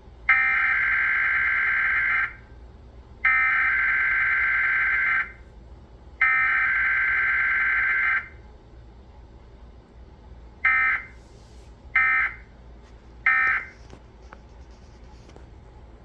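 Emergency Alert System digital data tones (the SAME header) playing from a television: three harsh, buzzy bursts of about two seconds each, roughly a second apart. Near the end come three short bursts, the end-of-message code that closes the alert.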